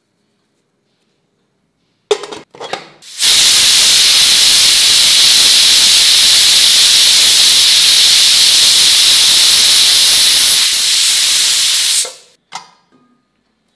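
Prestige pressure cooker whistling: steam spurts out from under the weight valve a few times, then vents in a loud, steady hiss for about nine seconds before cutting off suddenly, with one short puff after. The whistle is the sign that the cooker has reached full pressure, one of the 6–8 whistles the recipe counts on a low flame.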